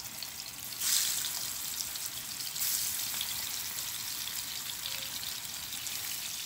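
Koi fish (climbing perch), coated in turmeric and salt, sizzling as it fries in hot oil, a steady hiss that swells about a second in and again near three seconds in.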